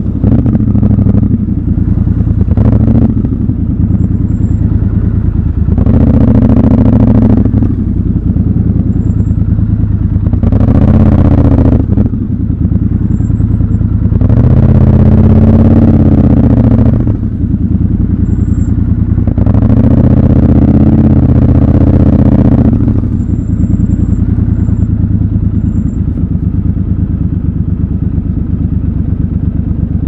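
Triumph Scrambler 1200 XC's 1200 cc parallel-twin engine heard from the rider's seat at low speed in traffic. It picks up in four short throttle openings, each rising and dropping back, then settles to a steady, lower running note for the last several seconds.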